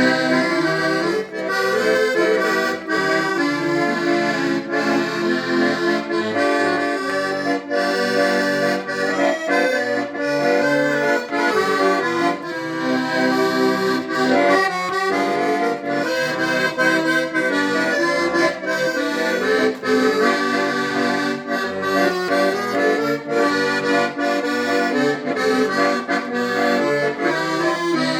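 A 1930 Hohner Organola accordion playing a tune with chords, still in its unrepaired state. The notes change often and the playing never stops.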